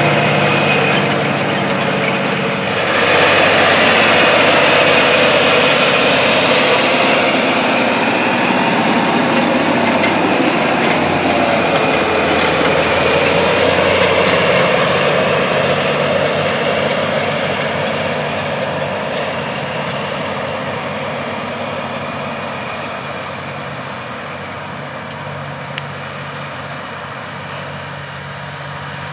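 John Deere 9RX four-track tractor's diesel engine running under load as it pulls a V-Ripper subsoiler through the field, with a broad rushing noise over the engine. The sound dips and shifts about three seconds in, then fades gradually over the second half.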